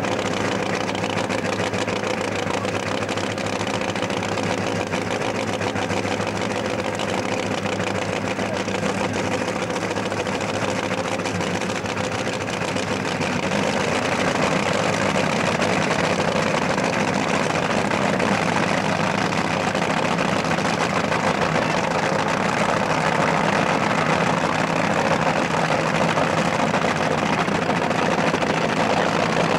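Top fuel dragster's supercharged nitromethane engine idling steadily, a little louder from about halfway through.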